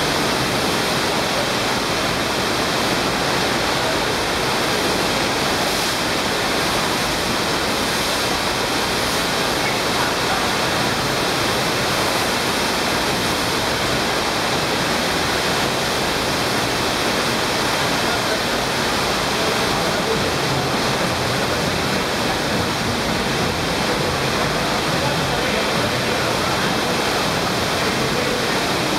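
Steady, loud rush of water pouring up the slope of an indoor sheet-wave surf machine.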